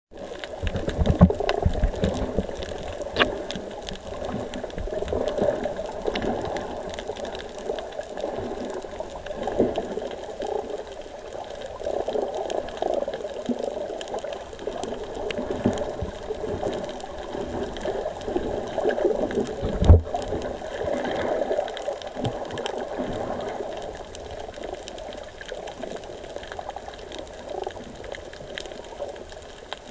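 Muffled underwater water noise picked up through an action camera's waterproof housing, rising and falling unevenly, with a few dull knocks, the loudest about a second in and about twenty seconds in.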